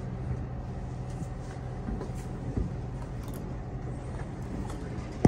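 Steady low drone of a running vehicle, with a few faint knocks and a sharp click at the very end.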